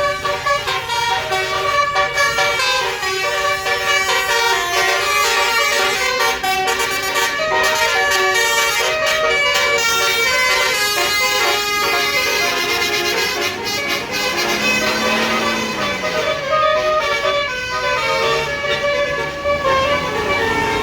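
Bus's Basuri multi-tone telolet air horn playing a long melody. Several pitches sound together and step from note to note without a break.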